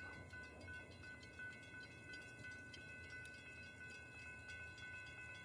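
Faint night insect chorus: high, steady cricket-like trills, one of them pulsing regularly, over a low distant hum.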